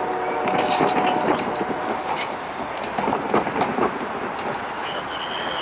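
Loaded ballast hopper cars rolling past: steel wheels clattering and knocking on the rails, with steady squealing tones from the wheels and a brief higher squeal near the end.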